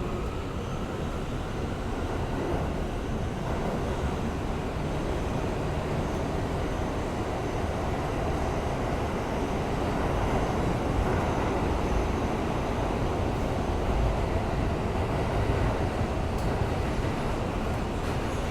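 R160A-2 New York City subway car running at speed, heard from inside the car: a steady rumble of wheels on rail and running gear, swelling slightly about halfway through.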